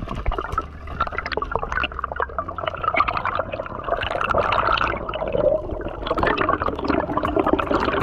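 Underwater water noise: gurgling and bubbling as water rushes past the camera, louder from about four seconds in, with many scattered clicks.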